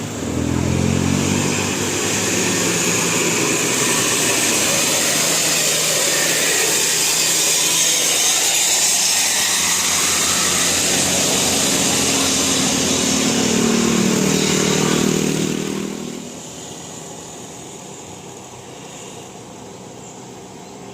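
Road vehicles passing close by, engines running loudly with the note rising and falling twice. The noise drops away sharply about 16 seconds in, leaving a quieter steady background of traffic.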